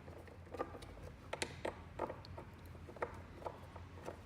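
Screwdriver turning the mounting bracket's screws by hand: a run of irregular small clicks and ticks.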